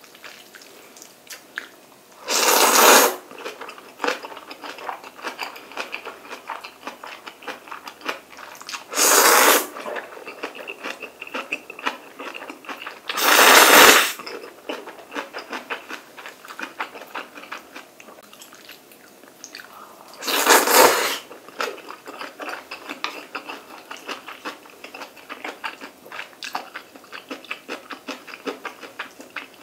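Close-miked eating of instant black bean (jjajang) noodles: four loud slurps of noodles, each under a second, with quick wet chewing sounds in between.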